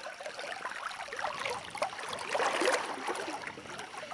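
Water splashing and trickling, busiest about halfway through.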